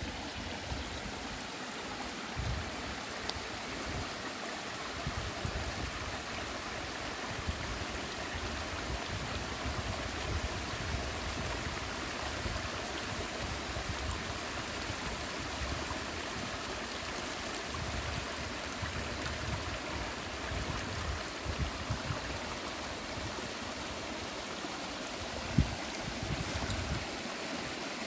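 Small woodland stream of rainwater running steadily over rocks and leaf litter, a continuous rushing and trickling. A low rumble comes and goes underneath, and there is a single sharp thump near the end.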